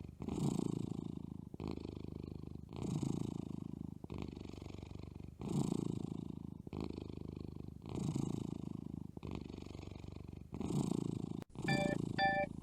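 Kitten purring close up, a steady low rumble that swells and eases with each breath, about one breath-phase every second and a quarter. A few electronic music notes come in near the end.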